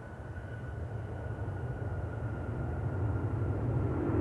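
Airbus A340-300 airliner's four CFM56 turbofans on the landing roll. A steady high whine sags slightly in pitch over a low rumble that grows steadily louder.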